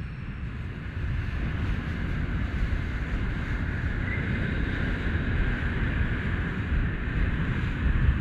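Small boat running across choppy sea: a steady rush of wind buffeting the microphone and water rushing past the hull.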